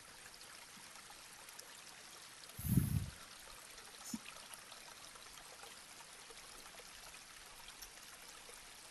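Faint steady hiss of room tone, broken about three seconds in by a dull low thump lasting about half a second, then a faint click a second later.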